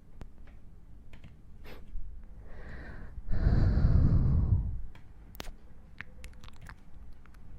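Close-miked ASMR trigger sounds: scattered small clicks and taps, with one breathy whoosh a little over halfway through.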